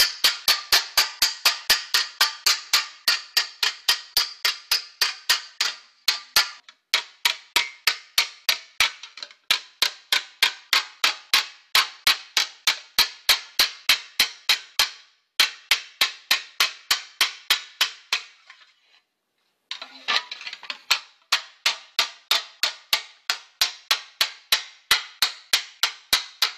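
Sheet-metal mudguard being hammered over a mushroom-head stake on an anvil to curve it, about three blows a second. Each blow rings briefly, and the run breaks off for a few short pauses, the longest a little over a second near two-thirds through.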